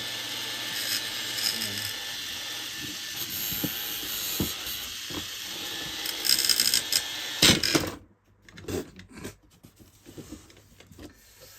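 Hubsan H501S drone's brushless motors running at speed with a steady whir, a few loud clicks near the end, then cutting off suddenly about eight seconds in, after which only faint clicks remain. The motors throttle up but won't throttle back down.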